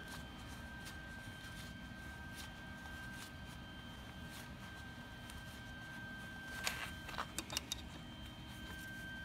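Quiet shop background with a faint steady high tone, and a few light sharp clicks about seven seconds in as a wrench works a nut welded onto a broken exhaust manifold stud, turning the stud out of the aluminum cylinder head.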